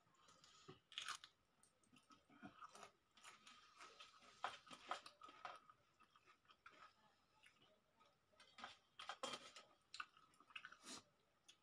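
Faint eating sounds of people eating rice and curry by hand: chewing and mouth clicks, with scattered light clicks of fingers against steel plates.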